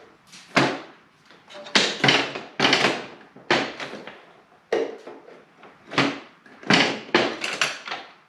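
Metal hand tools and wrenches clanking and clattering while being handled and picked through in a tool tray: about a dozen sharp, irregular knocks.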